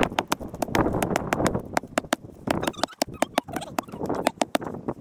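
Small hatchet chopping a dry branch on a wooden block: a quick, uneven run of sharp knocks, with rustling of twigs between the strokes.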